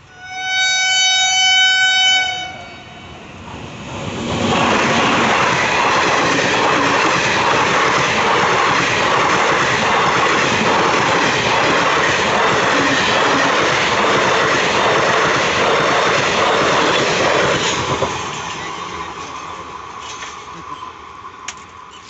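A passenger train's locomotive horn sounds one steady blast of about two seconds as the train approaches. Then the train runs past close by for about fourteen seconds, its wheels clattering on the rails, and fades as it moves off down the line.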